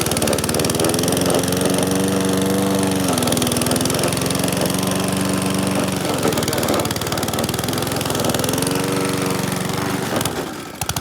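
Gas push lawn mower engine running under heavy load, its speed sagging and recovering several times as it bogs down in thick, wet grass that keeps clogging the deck. Near the end the sound drops away briefly, then picks back up.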